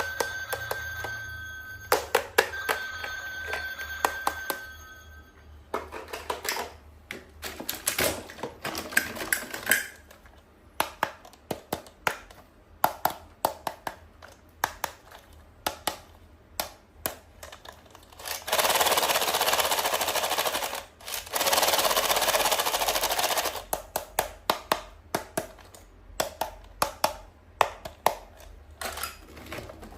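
Small toys and their packaging being handled: many light plastic clicks and taps throughout. For the first few seconds there is an on-and-off electronic beeping, and a little past the middle come two long stretches of rustling or ripping packaging, each about two seconds.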